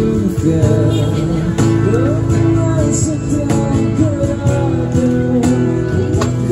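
Live acoustic busking: a man sings a slow pop song while strumming an acoustic guitar, with a cajon tapped as the beat.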